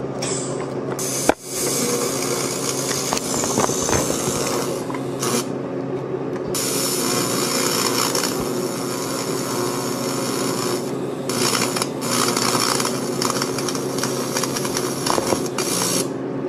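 AC TIG welding arc on thin aluminum can metal, run at low amperage: a steady buzz under a crackling hiss. The arc cuts out briefly about a second and a half in and restarts, and the hiss breaks off for a moment a few times later.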